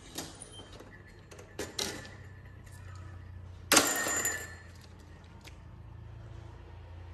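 Stainless-steel wire bird trap cages being handled: a few sharp metal clicks, then a louder metallic rattle about four seconds in.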